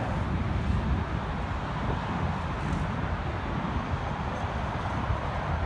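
Steady rumble of road traffic, with no distinct event standing out.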